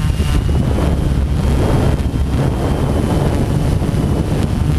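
Wind and propeller wash buffeting the microphone of a multicopter drone's onboard camera, a steady low rumble, with the faint high whine of the drone's motors running throughout.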